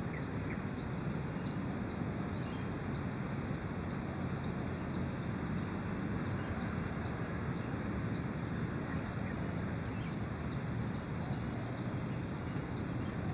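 Outdoor ambience of insects trilling steadily at a high pitch, one with a fast even pulse, over a low steady rumble, with a few faint short chirps.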